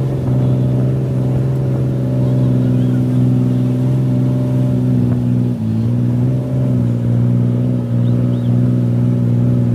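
Bumboat's diesel engine running steadily under way, with a brief dip in pitch a little past halfway before it picks up again.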